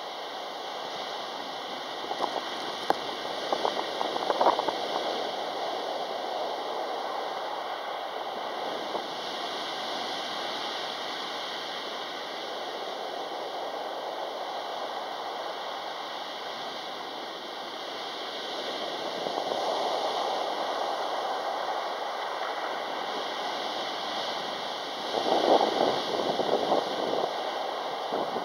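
Sea waves breaking and washing up a pebble beach: a steady surf hiss, with louder crashes about two to five seconds in and again near the end.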